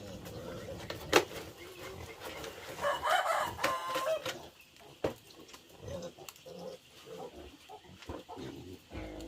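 A rooster crowing once, about three seconds in, among a few sharp knocks.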